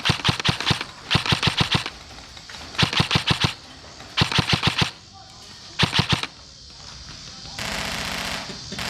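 Airsoft rifle firing on full auto in five short bursts of about five to seven shots each, around ten shots a second, with pauses between them. Near the end a steady, even sound takes over.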